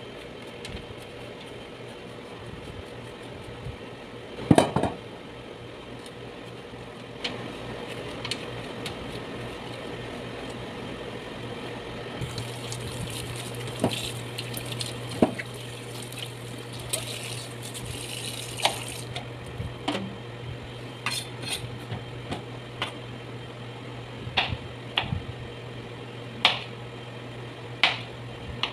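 Kitchen knife cutting squash on a cutting board: scattered knocks of the blade against the board, with one loud thump about four and a half seconds in. A stretch of hiss in the middle.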